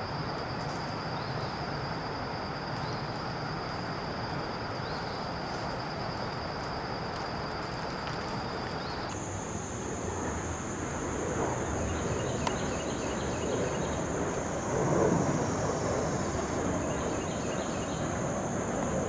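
Outdoor ambience picked up by a camcorder microphone: a steady rushing background with a thin, high, continuous whine. About nine seconds in, the whine jumps to a higher pitch.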